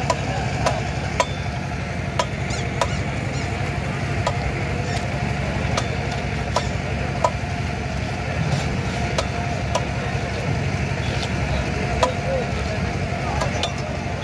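Katla carp being scaled and cut by hand on upright curved boti blades: scraping with sharp clicks at irregular intervals, over a steady low rumble.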